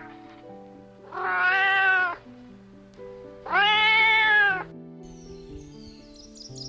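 An animal gives two long drawn-out calls, each about a second long, about two seconds apart, over background music.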